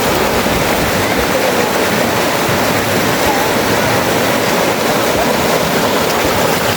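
Fast-flowing river water rushing steadily and loudly close by, the current running high with rainy-season water.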